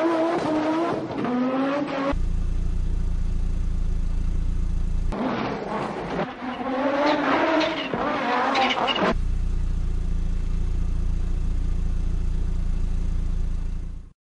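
Audi Quattro rally car's turbocharged five-cylinder engine revving hard, its pitch climbing and dropping through gear changes. This happens in the first two seconds and again from about five to nine seconds in. In between and afterwards a steady low drone takes over, and the sound cuts off just before the end.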